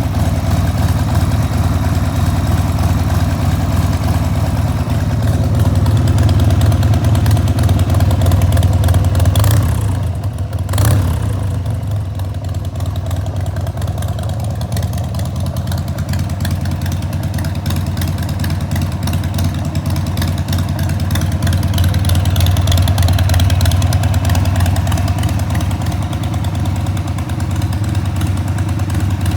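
1994 Harley-Davidson XLH1200 Sportster's 1200 cc Evolution V-twin running through Screamin' Eagle turnout silencers. It runs steadily, swelling a little louder twice, with a brief dip and a short sharp blip about ten seconds in.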